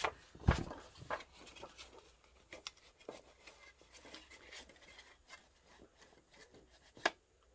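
Soft scratchy rubbing and dabbing of a wooden-handled ink blending tool worked along the edges of scrapbook paper, with the paper rustling. A thump about half a second in and a sharp tap about seven seconds in.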